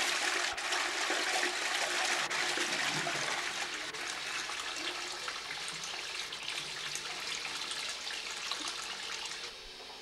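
Allia porcelain toilet flushing: water rushes loudly into the bowl, eases off gradually, and drops to a quieter steady hiss near the end.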